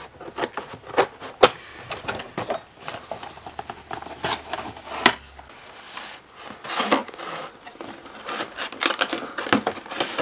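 Retail CPU box being opened by hand: cardboard and packaging being scraped, tapped and crinkled in a quick run of clicks and rustles, with two sharper snaps about a second and a half in and about five seconds in.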